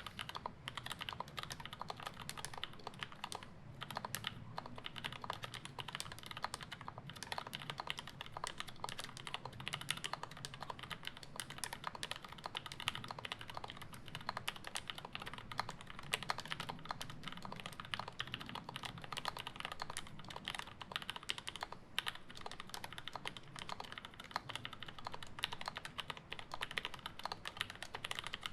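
Continuous fast typing on a custom Alice-layout mechanical keyboard with an acrylic case and plate, lubed linear switches with UHMWPE and Gateron Milky housings, and GMK keycaps: a dense run of keystroke clacks.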